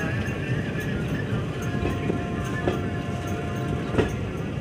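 Indian Railways passenger coach running along the track: a steady rumble of wheels on rail with irregular clacks over rail joints, the loudest about four seconds in.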